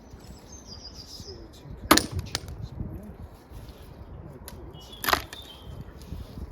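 Two sharp clacks about three seconds apart, the first one the loudest, over a low background with faint high chirps.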